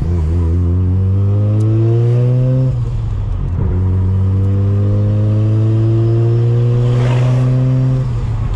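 Street-ported rotary engine of a Mazda RX-7 with a single S366 turbo, accelerating through the gears. The pitch climbs steadily, drops at an upshift about three seconds in, then climbs again through the next gear until another shift near the end, with a short hiss about seven seconds in.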